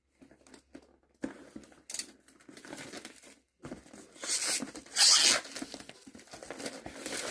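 Blind-box packaging being torn open and crinkled by hand: scattered rustles and clicks, then a louder, longer tear about four to five seconds in.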